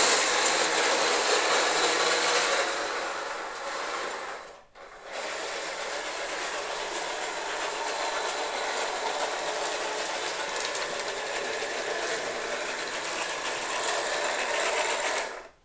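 3D-printed KV-1 tank model running its drive and plastic tracks: a dense mechanical rattle and clatter of track links and gears. It starts suddenly, is loudest for the first couple of seconds, stops for a moment about five seconds in, then runs on steadily a little quieter until it cuts off.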